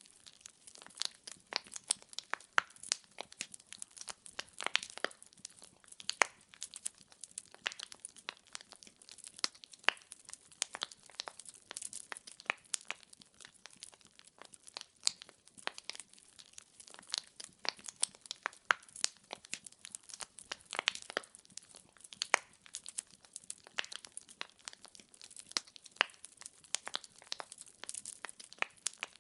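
Wood fire in a fireplace crackling, with frequent irregular sharp pops and snaps of burning logs over a faint hiss.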